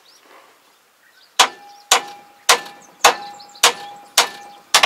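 Hammer blows on a steel part of a crawler sprayer: seven even strikes about two a second, starting just over a second in, each with a short metallic ring. It is the sound of beating a bent part back into shape.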